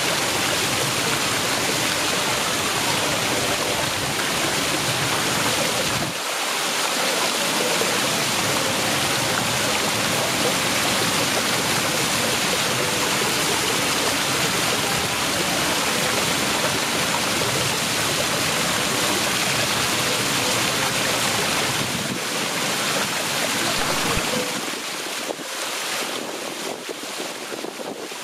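Water cascading down the tiers of a brick fountain and splashing into its pool: a steady rushing splash, a little softer near the end.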